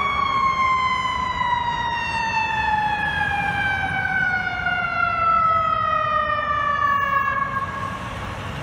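Fire truck's mechanical siren winding down in one long, slowly falling wail that fades out near the end, over the low rumble of the truck's engine.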